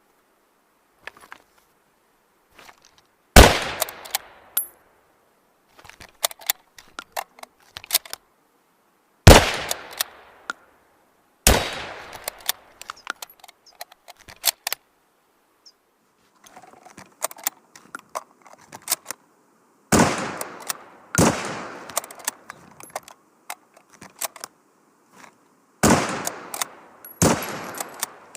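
A makeshift rifle sound effect: about seven sharp, loud bangs, each trailing off in a short ringing decay, some coming in pairs a little over a second apart. Smaller clicks and rattles come between the shots, like the action being worked.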